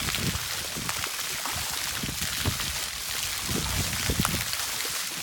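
Pool water jets spraying steadily, the water pattering onto the deck and the pool surface, with a few low splashes as a dog plays in the stream of water.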